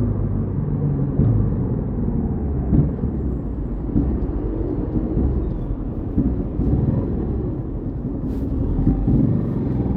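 Yamaha XTZ 150 Crosser S's single-cylinder four-stroke engine running while riding, its revs rising and falling.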